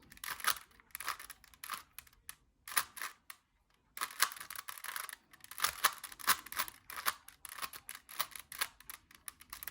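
Rubik's Cube faces being twisted rapidly, a run of quick plastic clicks and clacks with a short pause about three and a half seconds in.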